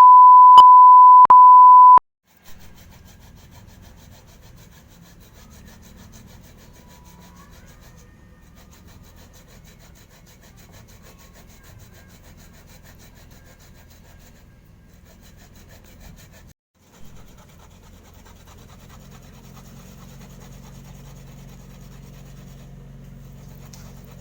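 A loud, steady electronic beep tone lasting about two seconds, with two short clicks in it. It cuts off, leaving faint low hum and background noise that drops out briefly in the middle.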